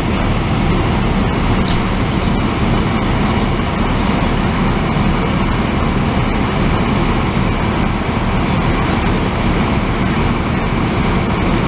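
A loud, steady roar with a constant low hum, like a large engine or fan running continuously, with no alarm tones in it.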